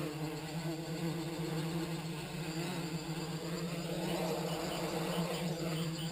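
Electric motors and propellers of a MultiWii quadcopter running as it hovers, giving a steady buzzing hum with a whooshing sweep in tone about two-thirds of the way in as it drifts.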